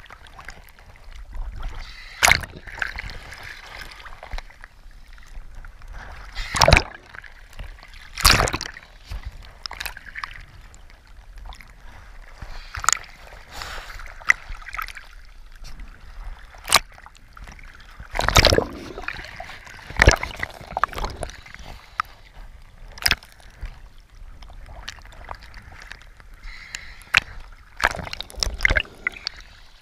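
Sea water sloshing and slapping against a camera floating at the surface, with irregular sharp splashes every few seconds over a low, steady wash.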